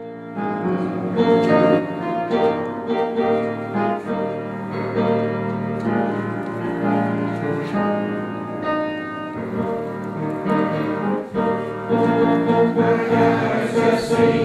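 Piano music: a run of sustained chords, changing every second or so.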